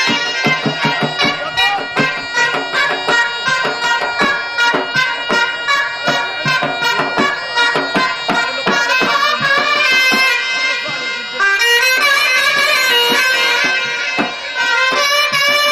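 Upper Egyptian tahtib music: a loud, reedy mizmar shawm melody over quick beats of a tabl baladi drum. About halfway through, the drum beats thin out and the melody turns to wavering ornaments.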